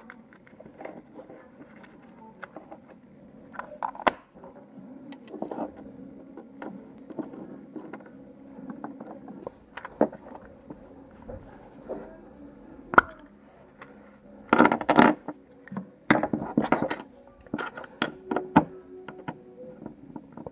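Small hard-plastic parts handled and clicked together: a Kinder Surprise capsule pulled open and a toy figure's pieces pressed onto its base. Scattered light clicks and taps, with two denser bursts of clicking and rattling about two-thirds of the way through.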